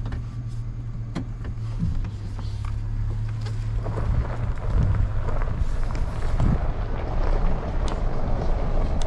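2003 GMC Sierra pickup pulling away and driving over a gravel driveway, engine and tyre crunch heard through the open driver's window, growing louder from about four seconds in as it picks up speed. With electric fans in place of the engine-driven clutch fan, there is no fan roar on take-off.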